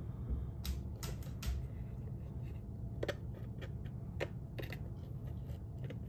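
Hands handling paper and small wooden puzzle pieces on a craft board: light scattered clicks and rustles, a few in the first second and a half and more from about three seconds in, over a low steady hum.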